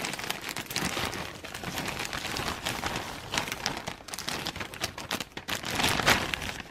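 Plastic bag of mini marshmallows crinkling as it is squeezed and shaken empty over a plastic bowl. A busy run of crinkles and rustles, loudest near the end.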